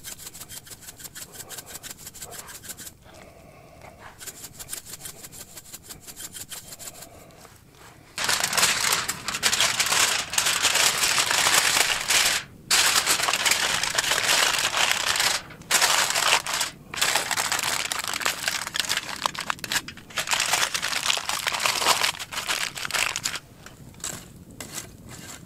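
Fire crackling quietly. About a third of the way in, a loud crinkling rustle of heavy-duty aluminium foil begins as it is folded and handled, stopping briefly a few times, and it gives way to the quieter crackle again near the end.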